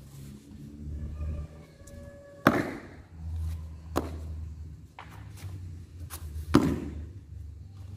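Three sharp slap-like impacts from a pencak silat performer's solo routine, about two and a half, four and six and a half seconds in, over a low steady rumble.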